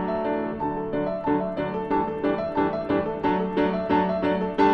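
Background piano music: a melody of evenly paced notes, about three a second.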